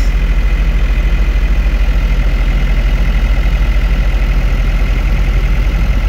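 New Holland 4835 tractor's diesel engine idling steadily, with an even low pulsing rumble as heard inside the cab. A faint steady higher whine sits above it while the cab air conditioning runs.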